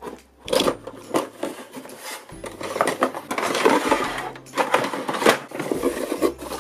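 Scissors cutting the tape on a cardboard toy box, then cardboard and hard plastic game parts rustling and knocking as they are slid out of the box. Paper rustles near the end.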